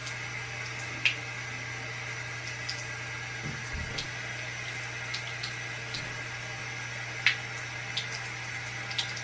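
Bathroom faucet running steadily into a sink, with a steady low hum underneath and a few brief sharp sounds, the loudest about a second in and about seven seconds in.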